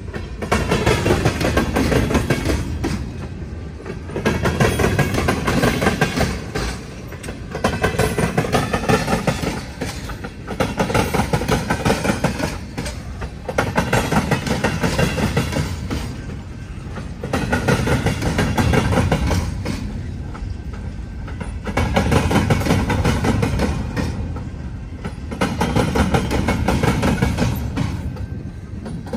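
Freight car wheels rolling across a railroad diamond crossing, each set of wheels pounding over the crossing rails in a loud burst of metallic clatter. The bursts come roughly every two to three seconds as the cars pass, with a faint metallic squeal in some of them.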